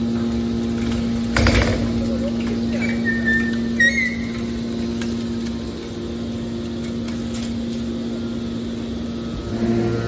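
Hydraulic scrap metal baler running with a steady hum from its pump while the ram pushes a compressed bale of metal turnings out of the chamber. A metal clank comes about a second and a half in, and a brief high metallic squeal around four seconds.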